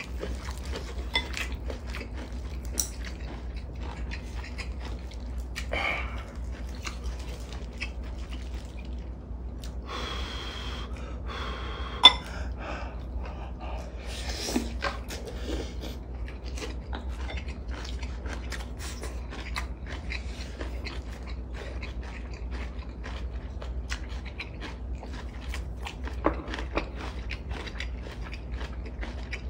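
Eating sounds: two people chewing braised kimchi, mackerel and rice, with frequent small clicks of chopsticks and spoons against bowls and the pot. One sharp clink about twelve seconds in is the loudest sound, all over a steady low hum.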